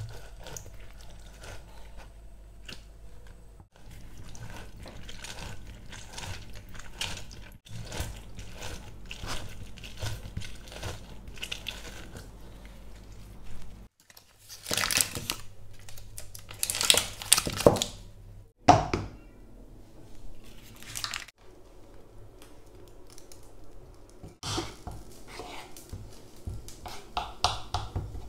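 Orange halves pressed and twisted by hand on a plastic citrus reamer: wet squishing and the rind rasping on the ridges, with a low steady hum beneath. About halfway come several louder, rougher bursts of scraping.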